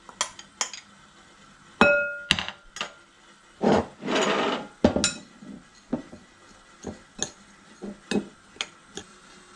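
A spoon knocking and scraping in a bowl as grated coconut, crushed jaggery and ground cardamom are mixed into a sweet filling: scattered light knocks, one ringing clink about two seconds in, and a short stretch of scraping around four seconds.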